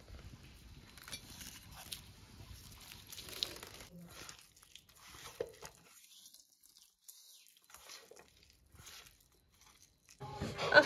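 Faint, scattered sounds of hands squeezing and mixing chopped roasted vegetables in a steel bowl, with near silence around the middle. A louder sound cuts in near the end.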